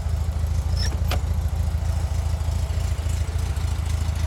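Air-cooled 1600 cc Volkswagen flat-four engine idling steadily, with one sharp click about a second in.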